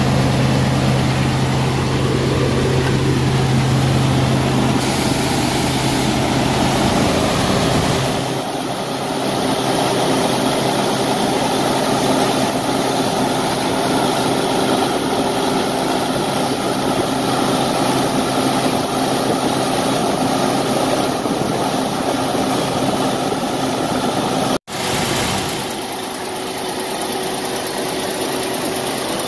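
Semi truck's diesel engine running at raised idle during a forced regeneration, with the cooling fan running. A steady low hum gives way about eight seconds in to a broader rushing engine-and-fan noise, broken by a brief dropout near the end.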